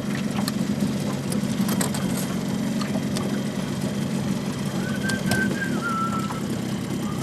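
Boat motor idling steadily. About five seconds in, a high, held whistling tone joins it, dropping a little in pitch and holding again.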